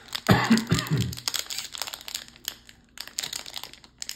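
Crinkling and crackling of plastic booster-pack packaging and trading cards being handled: a run of quick, irregular crackles over a few seconds.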